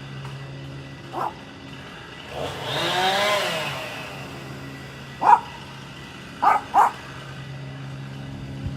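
A dog barking: one short bark, then a longer drawn-out call about three seconds in, then a single bark and a quick double bark. Under it a steady low engine hum runs throughout.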